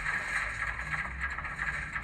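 Ruston and Hornsby 88DS diesel shunter engine sound from a model locomotive's DCC sound decoder, played through its small onboard speaker, running steadily with a rapid flutter.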